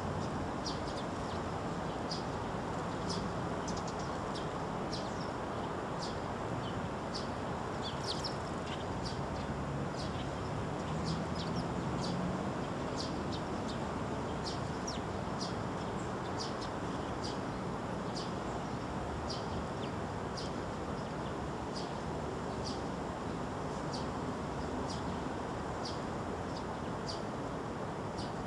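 Eurasian tree sparrows chirping, short high chirps coming one or two a second, over a steady low background noise.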